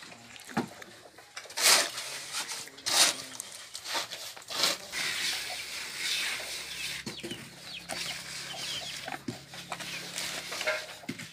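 Chickens clucking, with a few sharp knocks and clanks.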